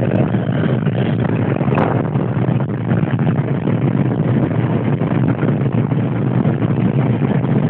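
Steady engine, road and wind noise inside a Daewoo Matiz's cabin, running flat out at about 140 km/h on a highway.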